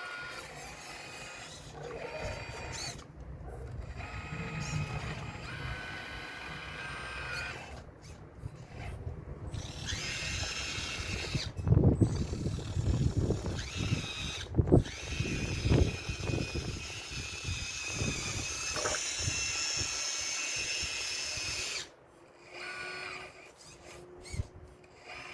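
RC model excavator's motors whining and changing pitch in stops and starts as the machine works, with a run of heavy knocks and thumps about halfway through as it hits the stone wall.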